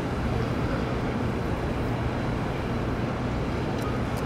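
Steady rushing roar of helium gas venting through the rooftop quench vent stack as a 4.7 T Varian magnet quenches and its liquid helium boils off.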